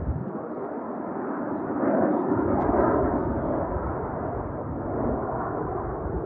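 Distant jet roar from a formation of Northrop F-5E Tiger II fighters, whose General Electric J85 turbojets make a steady rumble as the formation dives trailing smoke. The roar swells about two seconds in and then eases a little.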